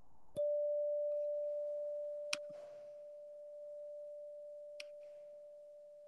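A bell-like chime struck once, ringing a single pure tone that slowly dies away, tolled as a memorial after a name of the dead is read. Two small clicks come partway through the ring.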